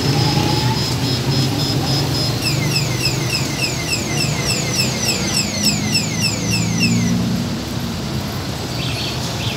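Street traffic with engines running, including jeepneys and motorised tricycles. Over it a high electronic alarm cycles through its tones: a steady beeping at first, then a fast run of falling chirps, about three a second, that stops about seven seconds in.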